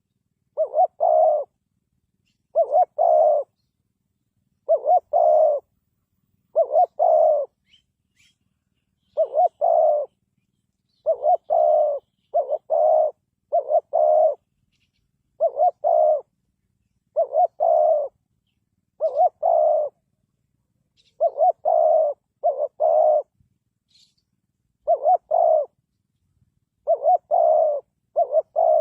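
Spotted dove cooing: short phrases of two or three low coos, repeated every second or two, with silence between them.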